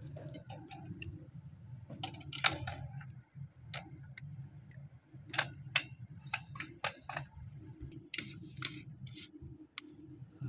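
Irregular hard plastic clicks and knocks of PVC pipe fittings being handled and screwed together: an elbow and union coupling being fitted onto a water pump's pipe. A steady low hum runs underneath.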